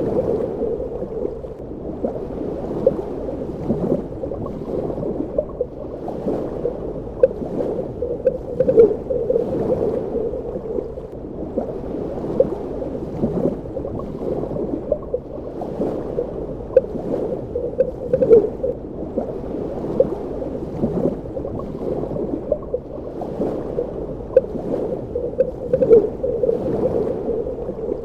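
Underwater ambience: muffled, low-pitched water movement with frequent small bubbling pops and clicks.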